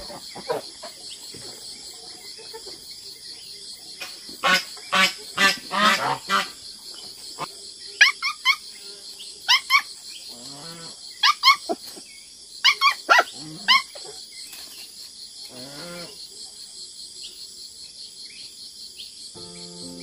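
A puppy yelping and whining in short, sharp, pitched calls that come in clusters, over a steady chirring of insects. Music comes in just before the end.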